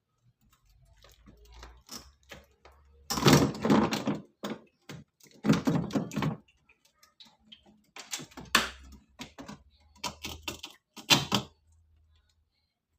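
Bursts of clattering and knocking, as of objects being handled and set down, in several clusters: about three seconds in, five and a half, eight and a half, and eleven seconds in.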